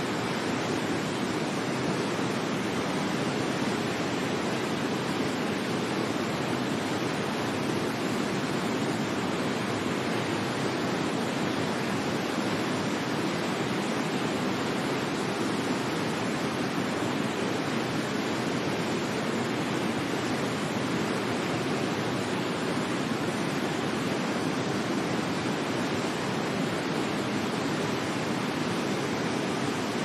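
Waterfall: a steady, even rush of falling water, deepest in its low-middle range, with no change in level.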